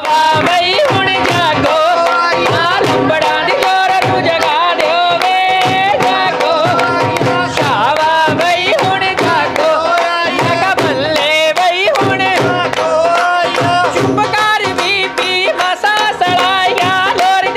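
Women singing Punjabi gidha boliyan (folk couplets) in high, wavering voices, over a steady fast beat of handclaps and percussion.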